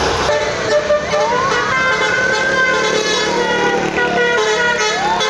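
Indonesian bus basuri (telolet) horn playing a tune of short stepped notes, overlaid with a siren-like tone that rises, falls slowly over about four seconds, and starts rising again near the end.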